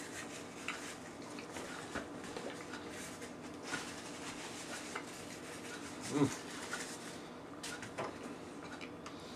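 Mouth noises of a man chewing a small soft hamburger, with scattered small clicks and taps at the table. There is a short hummed "mm" about six seconds in.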